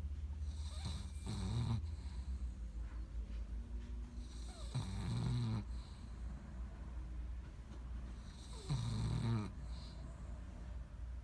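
Slow, regular snoring: three snores about four seconds apart, over a steady low hum.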